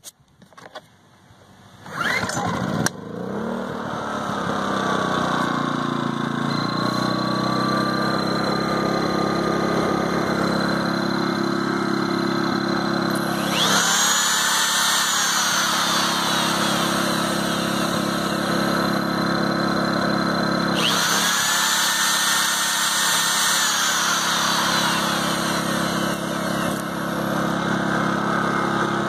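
Generac GP2200i inverter generator's small single-cylinder four-stroke engine starting about two seconds in, then running steadily. Twice its speed rises for a few seconds and drops back to the lower speed.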